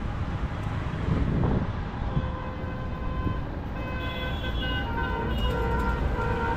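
Steady city road traffic rumble with vehicle horns: several held horn tones at different pitches overlap and come and go, mostly in the second half.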